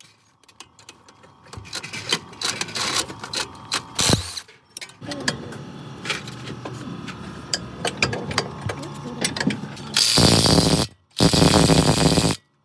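Workshop tool sounds: irregular mechanical clicking and ratcheting, with two loud bursts of about a second each near the end.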